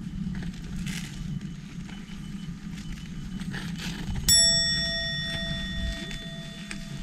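A bell struck once about four seconds in, ringing with a clear tone that fades over about two and a half seconds, over a steady low rumble.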